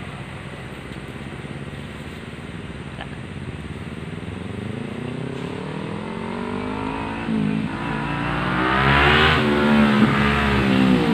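Kawasaki Ninja 250 motorcycle approaching, its engine rising in pitch as it revs up through the gears, with drops in revs at the gear changes, growing louder as it comes closer.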